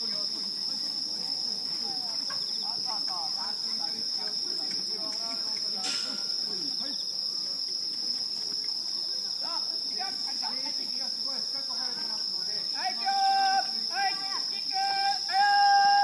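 Steady high-pitched chorus of crickets or other night insects. Near the end a high voice calls out a few times, louder than the insects.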